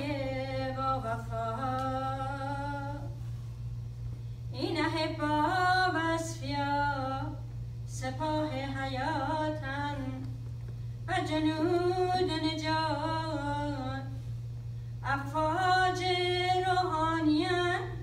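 A woman's solo voice singing unaccompanied, in five long melodic phrases with short pauses between them, over a steady low hum.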